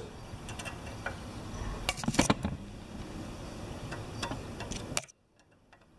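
Screwdriver tip ticking and scraping against the slotted adjusting screw of a pressure washer pump's unloader valve: a few light metal clicks, the sharpest about two seconds in. The sound cuts off suddenly about five seconds in.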